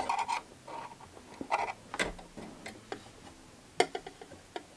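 Scattered light clicks and taps, about half a dozen spread unevenly over a few seconds, from hands handling the thread guides and metal parts of a Brother 1034D overlocker while threading it.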